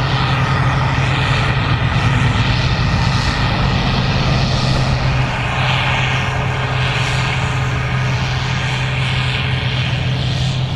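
Gleaner R65 combine running steadily while harvesting corn: a constant deep engine drone with a hiss of machinery and crop higher up that swells and fades about once a second in the second half.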